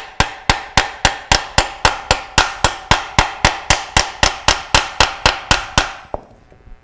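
Hammer tapping the inner metal ring of a new rubber motor mount onto a Bell & Gossett Series 60 pump motor's end bell, driving it on evenly until it sits flush. Quick, even taps, about three to four a second, each with a short metallic ring, stopping near the end.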